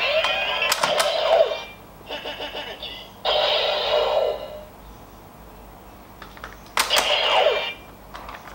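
Bandai DX Decadriver toy belt playing its electronic sound effects for a Final Form Ride card, in several bursts of synthesised tones and sweeps. Sharp plastic clicks come about a second in and again near seven seconds, as the belt's handles and buckle are worked.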